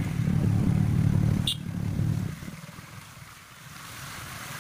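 Hero motorcycle engine running with a fast low pulse as the bike is ridden along a rough, muddy road. It eases off to a much quieter low hum about two and a half seconds in. A single sharp click comes about a second and a half in.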